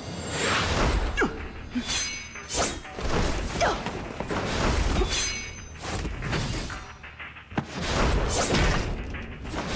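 Fight-scene sound effects: swishes of blows and weapons, thuds of bodies hitting the floor and crashing impacts, in quick succession over background music.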